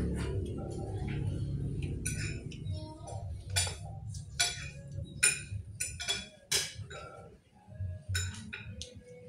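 Metal spoon clinking and scraping against a plate during eating: a string of sharp, irregularly spaced clinks, the loudest in the middle, over a low background hum.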